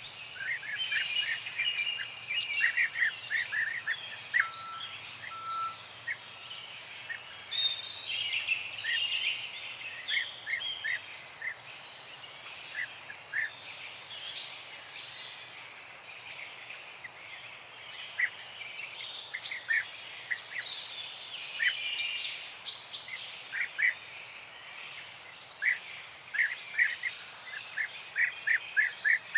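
Several birds chirping and singing at once, with overlapping strings of short quick notes, some repeated in even series, over a faint steady background hiss.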